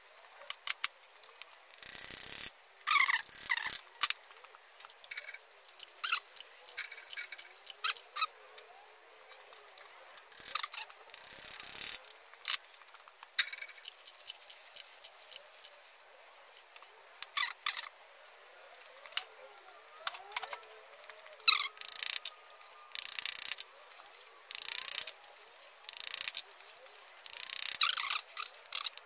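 Irregular sharp metal taps and clicks, with short rasping bursts between them, from hand tools on a French-built Ford flathead V8. The valves being tapped are two that are stuck open.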